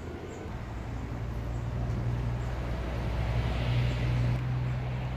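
Low, steady engine rumble, as of a passing motor vehicle, growing louder toward the middle and staying strong to the end.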